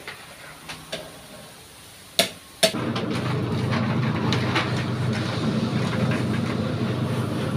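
Two sharp clicks, then a motor-driven rotating steel bowl mixer starts up about two and a half seconds in and runs steadily with a low hum and a busy rattle.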